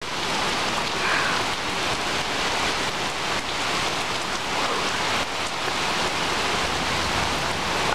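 Heavy rain pouring down in a loud, steady hiss during a severe thunderstorm.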